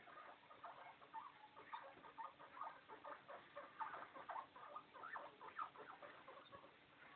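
Guinea pig squeaking: a quick, faint run of short squeaks, several a second.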